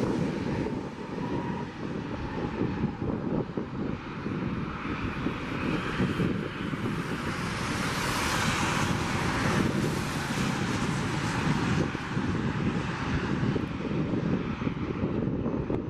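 Jet engines of a Southwest Boeing 737 taxiing past: a steady turbofan rumble and whine that grows louder, is strongest about halfway through as the jet passes closest, then eases off.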